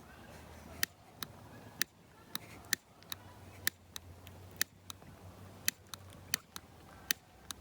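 Small fireworks popping and crackling: about a dozen sharp, irregular pops, one or two a second, over a faint low hum.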